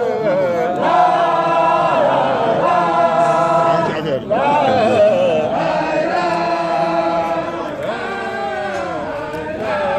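A group of men chanting a Mouride devotional song together, in long sung phrases with a short break about four seconds in.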